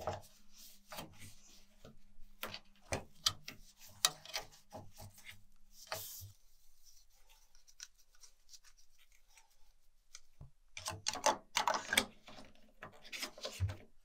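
A paper towel rubbing and wiping over the plastic drain-pump filter and hatch of a washing machine, with small clicks and knocks of plastic parts being handled. Partway through there is a quiet spell, then a second run of rubbing and clicking near the end.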